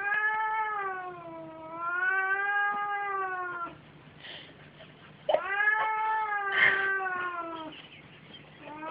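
Siamese cat yowling during a play-fight: long, drawn-out calls whose pitch wavers down and up. There are two calls of about three and a half and two and a half seconds, with a short noisy burst in the middle of the second, and a third call starting near the end.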